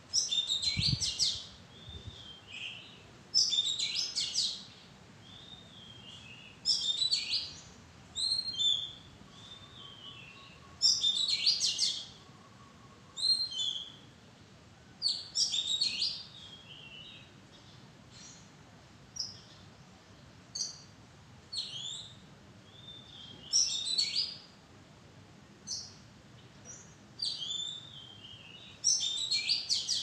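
Oriental magpie-robin singing: loud, varied whistled phrases repeated every two to four seconds, with softer notes between them.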